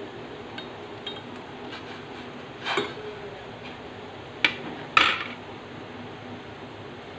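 A steel ladle clinking and knocking against a stainless steel cooking pot as grated bamboo shoot is tapped off into the water: a few light clinks, a short clatter about three seconds in, then two sharp ringing knocks about half a second apart, the loudest sounds. A steady low hum runs underneath.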